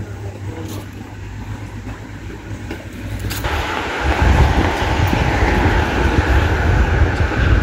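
Street traffic: a motor vehicle passing close, its noise rising sharply about halfway through and staying loud over a low rumble.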